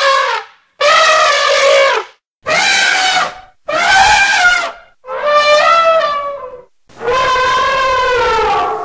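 African elephants trumpeting: a run of about six loud, brassy trumpet calls one after another, each a second or so long, with short breaks between.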